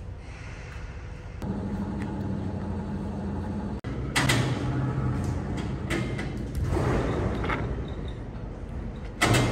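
A machine's motor starts up about a second and a half in and runs with a steady hum. Loud rattling and scraping noises come over it, loudest about four seconds in and again near the end.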